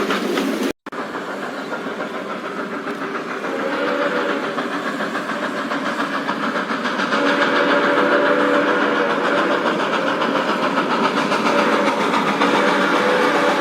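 Steam locomotive running with a fast rhythmic clatter, after a momentary dropout near the start. A low steam whistle sounds in long blasts from a few seconds in.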